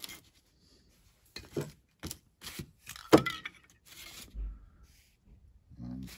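Ceramic tiles being slid and set down on a workbench: a series of separate clacks and short scrapes, the loudest about three seconds in.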